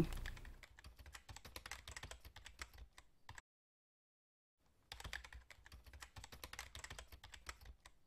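Faint, rapid computer-keyboard typing clicks, a typing sound effect for on-screen text being typed out. They stop a little after three seconds in and start again about a second and a half later.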